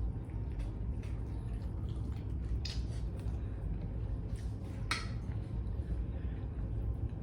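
Eating sounds: a person chewing food, with a few short clicks about three and five seconds in, over a steady low hum.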